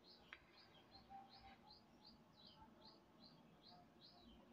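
Near silence, with a faint bird chirping steadily in the background: short high chirps repeated about three times a second. A faint click sounds about a third of a second in.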